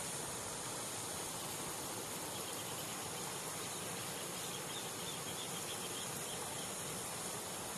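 Steady outdoor hiss, with faint insect chirps high up from about two and a half to six seconds in.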